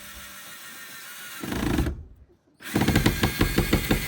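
Power drill driving a long fastener into wood, in two runs: a short burst about a second and a half in, then a brief stop and a longer run with a fast rattling pulse.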